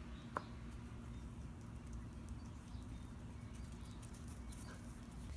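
Microwave oven running: a faint steady low hum, with one sharp click just after the start and a few faint light ticks.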